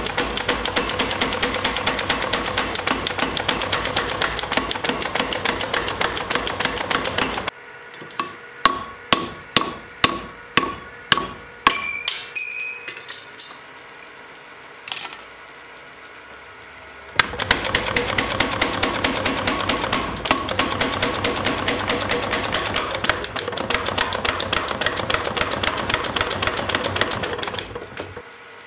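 Power hammer pounding in rapid strokes on a hand-held top tool set on red-hot steel over a swage block, in two long runs. Between the runs come about nine single ringing metal strikes, roughly two or three a second, then a few light clinks.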